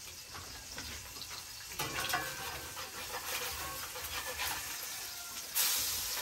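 Eggs frying in a cast-iron skillet: a steady sizzle, with a spatula scraping and clicking against the pan about two seconds in. The sizzle grows louder near the end.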